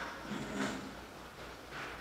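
Soft rustle of paper sheets being handled, twice, over faint room tone.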